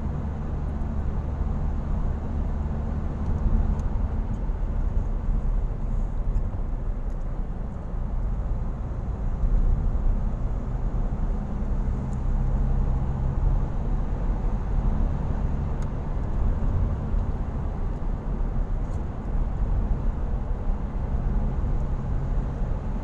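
A car driving along at road speed, heard from inside the cabin: a steady low rumble of engine and tyres on the road.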